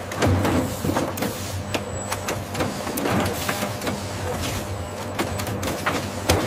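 Automated packaging machinery running: a steady low hum with irregular mechanical clicks and clacks from robotic arms and a roller conveyor, one louder clack near the end.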